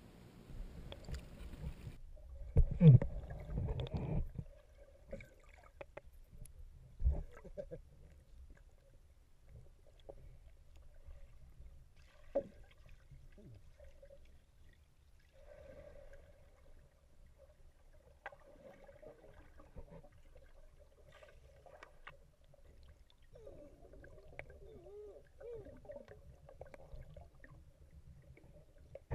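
A GoPro camera going under the water of a spring. A loud splash and gurgle comes as it dips in about two seconds in, with a thump a few seconds later. Then comes muffled underwater sound: a low rumble, faint gurgles and small knocks.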